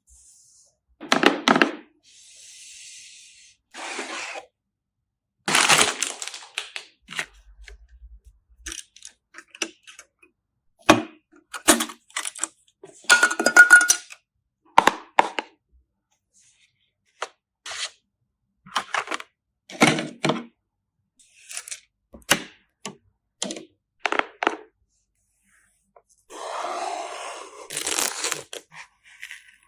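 Hard plastic and metal computer parts being handled and fitted together: a long run of separate clicks, taps and knocks, with a few longer scraping, rustling noises between them.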